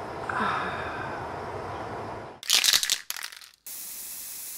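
Noise sound effects for an end logo: a steady low hiss, then about two and a half seconds in a run of loud crackling, static-like bursts, followed by a steady high hiss.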